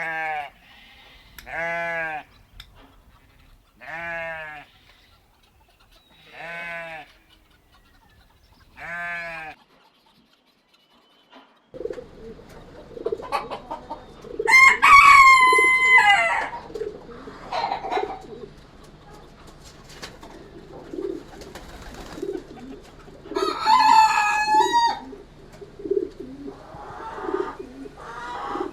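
Five bleats about two seconds apart, then a rooster crowing twice, long and loud, over hens clucking steadily.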